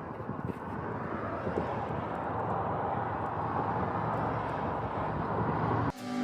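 A steady outdoor rumble of passing road traffic. Near the end it cuts off abruptly and acoustic guitar music begins.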